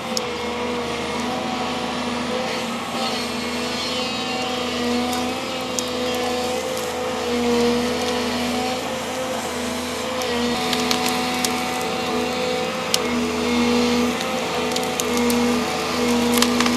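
Volvo excavator's diesel engine running steadily, its pitch shifting a little as the hydraulics take up load. Over it come scattered sharp cracks and snaps, more of them in the second half, as tree roots are torn from the ground.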